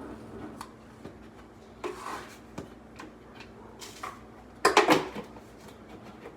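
Scattered clicks and knocks of objects being handled, with a louder clatter of several quick knocks about two-thirds of the way through, over a faint steady hum.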